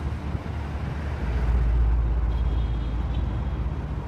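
Steady outdoor background noise with a heavy low rumble that swells louder from about a second in to about three seconds in.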